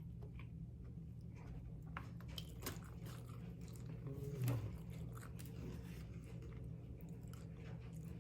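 A person chewing and biting food close to the microphone, with small wet clicks and crunches, over a steady low hum. About four and a half seconds in there is a short low hummed vocal sound.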